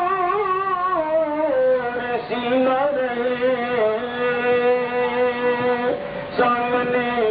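A voice singing a naat in long drawn-out held notes without clear words. The notes waver at first, then hold steady and step from pitch to pitch.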